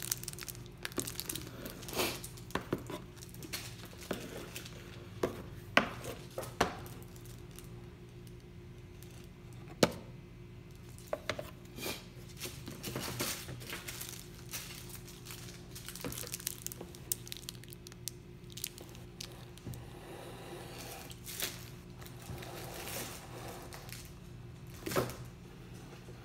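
Thin plastic wrapping crinkling and tearing as it is pulled off a leather belt, with scattered sharp clicks and taps from handling. A low steady hum runs underneath.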